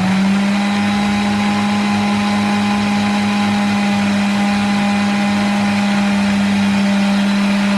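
Electric blender running steadily at full speed with a constant motor hum, grinding chopped cucumber, lemon and mint with no water added yet.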